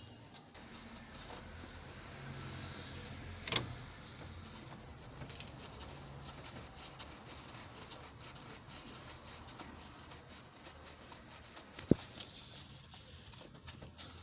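Hand tools working a 14mm starter-motor mounting bolt loose: faint handling sounds over a low hum, with a sharp click about three and a half seconds in and another near the end.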